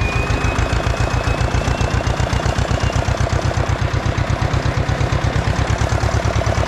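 Ursus C-335 tractor's two-cylinder diesel engine running under load while pulling a disc harrow, with a steady, even pulsing beat.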